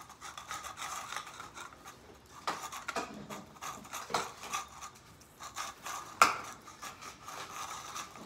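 Cats eating wet food out of open metal cans on a tile floor. The tins scrape and clink irregularly, with one sharper clink about six seconds in.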